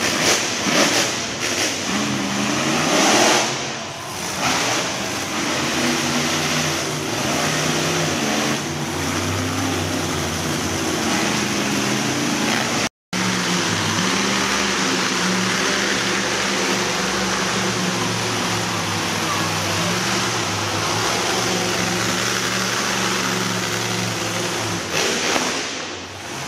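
Monster truck engines running and revving, rising in pitch a few seconds in, then settling into a steady run. The sound drops out for an instant about halfway through at an edit.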